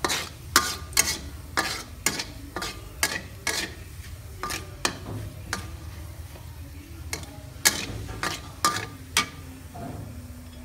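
Metal ladle knocking and scraping against a thin aluminium wok as minced garlic is stir-fried: irregular sharp clicks, about two a second, some with a short metallic ring. There is a brief pause just past the middle, and the strokes stop shortly before the end, over a steady low hum.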